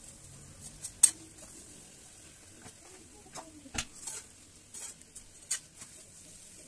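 Metal spatula scraping and clacking against a black iron tawa as a ghee-spread flatbread is pressed and turned, several times, the sharpest clack about a second in. Ghee sizzles faintly and steadily under the bread.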